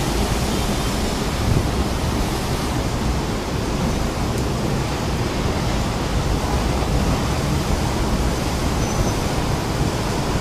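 Heavy wind-driven rain and strong wind of a storm, a steady, even rush of noise.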